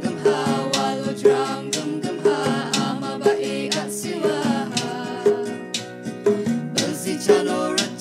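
Traditional folk song played live by a small ensemble: acoustic guitar with voices singing and a steady percussive beat struck about twice a second.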